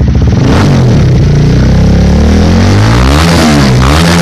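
Honda Winner 150 single-cylinder engine through a newly fitted R9 aftermarket exhaust with a stainless-steel expansion-chamber header, running and revved several times, its pitch rising and falling with each blip of the throttle. The exhaust note is deep.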